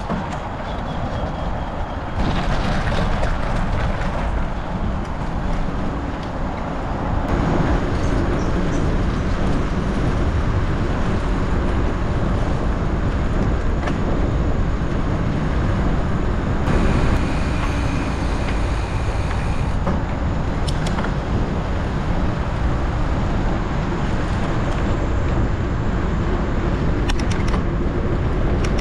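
Steady rumbling noise of a gravel bike being ridden off-road: wind and tyres on rough ground, getting louder a few seconds in. A few sharp clicks or rattles come in the second half.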